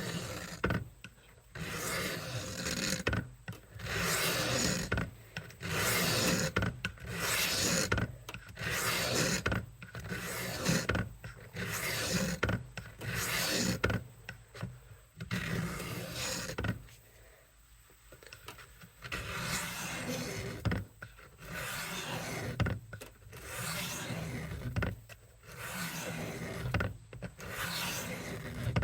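Paring knife blade drawn over the wet coarse stone of a Work Sharp guided sharpening system, a scraping stroke repeated about once a second, with a brief pause about two thirds of the way through.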